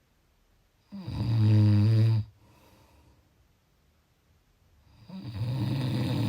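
Snoring: two long snores about four seconds apart. The first, about a second in, is a loud, buzzy rattle. The second, near the end, is softer and rougher.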